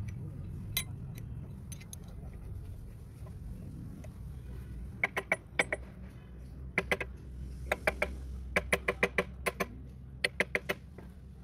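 Sharp, ringing metal-on-metal taps and clicks in quick runs of two to six, from a hammer and a bar wrench working on the steel bearing-cover bolts of a ZF bus gearbox, starting about halfway through.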